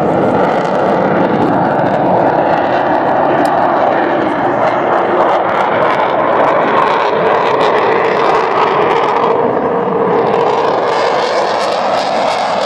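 Loud, steady jet roar from a Eurofighter Typhoon's two EJ200 turbofan engines as the fighter flies its display.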